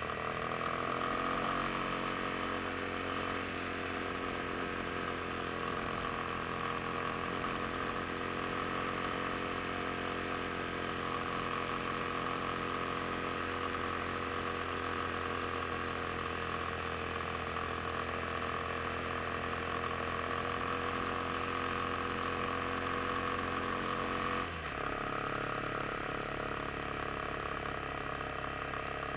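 Yamaha XT250's single-cylinder four-stroke engine running under way, the note rising over the first couple of seconds and then holding steady. The engine note changes abruptly about 25 seconds in.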